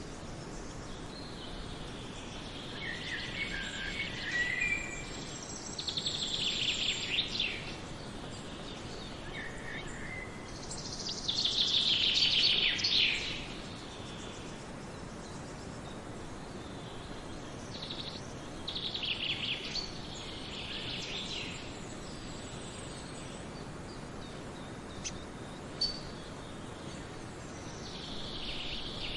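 Forest songbirds singing in short, trilling phrases over a steady background hiss. The loudest phrase comes a little before the middle.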